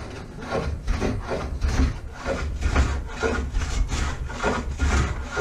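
Hand plane shaving a wooden blank on a workbench in repeated strokes, about two a second.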